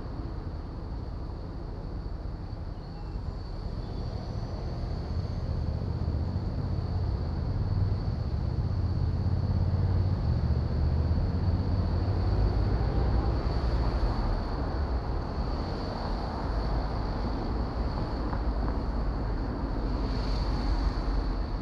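Road traffic passing through a junction: cars driving by with a steady low rumble that grows louder about a third of the way in. A faint, steady high-pitched tone sits underneath throughout.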